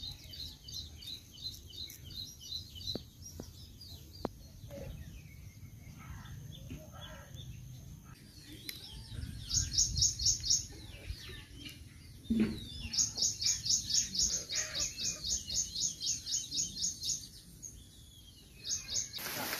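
Birds chirping: rapid runs of high, evenly repeated notes, about four or five a second, loudest in two runs in the second half, over a faint low rumble.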